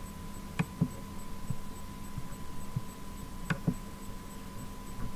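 Steady electrical hum from the recording setup, with a few computer mouse clicks, the clearest about half a second in and three and a half seconds in, each followed by a softer one.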